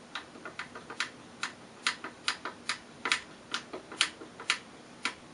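Screwdriver turning a flathead wood screw through the AK rifle's rear tang into the wooden buttstock: a run of sharp, irregular clicks, about three a second.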